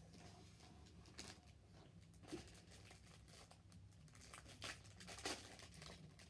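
Faint rustling and crinkling of packaging being handled, with a few sharper crackles, the loudest about five seconds in.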